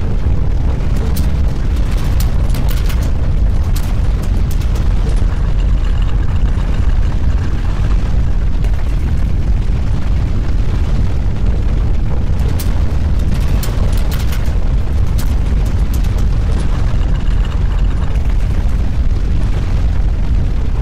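Deep, steady earthquake rumble with scattered crackles and rattles.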